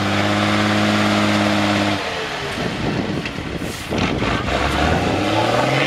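A 4x4 trial truck's engine pulling hard under load with a steady note. About two seconds in the steady note breaks up into a rough, noisy rumble as the truck wallows in the muddy water, and near the end the engine note climbs again.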